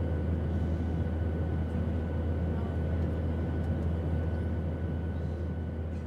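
A steady low droning hum with a faint hiss above it, unchanging in pitch and level.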